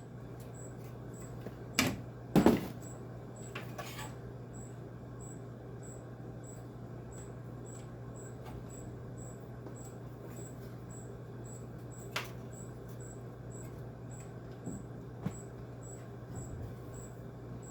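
Occasional clicks and knocks of tools and parts being handled while wiring a window air conditioner, the sharpest two about two seconds in, over a steady low hum.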